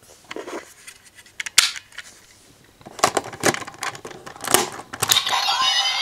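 Plastic clicks and snaps as a Matsubokkuri Lockseed is fitted and locked into a Genesis Driver toy belt. About five seconds in, the belt's electronic sound effect starts, with sweeping tones that rise and fall.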